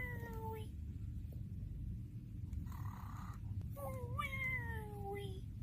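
Cartoon snoring by Nick Jr.'s animated host Face: two long, slowly falling voiced tones on the breaths out, with a short hissy breath in between them.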